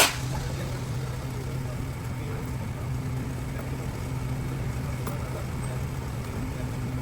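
Factory machinery running with a steady low hum, and a faint click about five seconds in.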